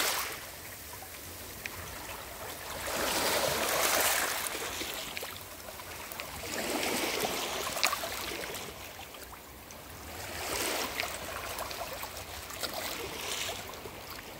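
Small waves washing over a pebble beach, the rush of water through the stones swelling and fading about every four seconds, with a few faint clicks.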